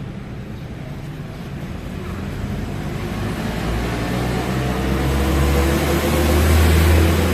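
Rusi RFI 175 motorcycle engine running and revving up gradually, getting steadily louder and slightly higher in pitch. It peaks just before the end, then eases off a little.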